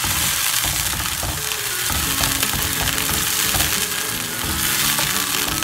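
Chopped tomato, onion and garlic sizzling in a non-stick frying pan as the sauce is stirred with a wooden spoon: a steady frying hiss.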